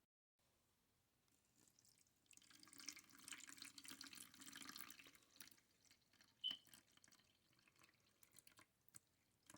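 Faint liquid splashing for about three seconds, then one sharp clink and a few light clicks.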